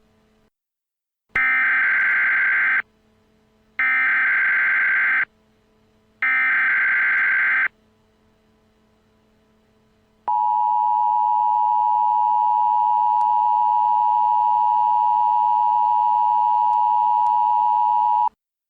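Emergency Alert System tones: three bursts of warbling digital SAME header data, each about a second and a half long, then the two-tone attention signal, a steady dissonant tone held for about eight seconds that cuts off abruptly.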